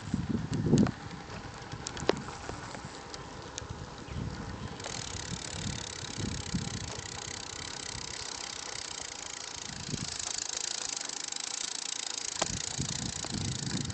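Bicycle riding on pavement: wind buffets the microphone in the first second, then a steady hiss of tyres and moving air grows louder about five seconds in. A freewheel ratchet ticks lightly now and then.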